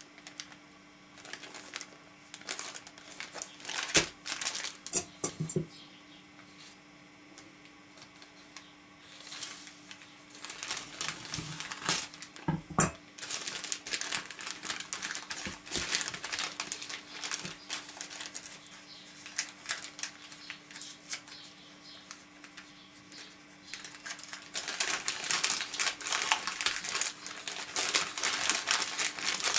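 Hands handling and tearing open a small postal mailer envelope: irregular crinkling and rustling with a few sharp snaps, the crinkling growing busier near the end.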